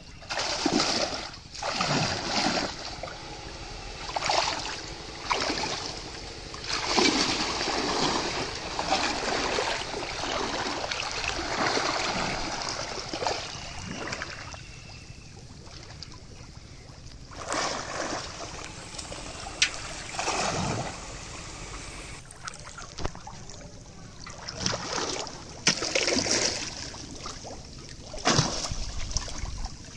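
Pond water splashing and sloshing in irregular bursts as a person wades and plunges under the surface to grab fish by hand.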